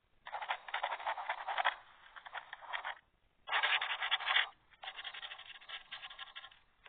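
Sound-effect samples played back from a phone video-editing app's effects library: scratchy, crackling noise in three stretches with short gaps between them, the middle one the loudest. The sound is thin, with no deep bass and no high treble.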